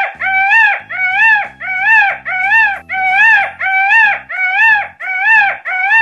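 A high whining animal call repeated about twice a second, each call rising and then falling in pitch, over background music.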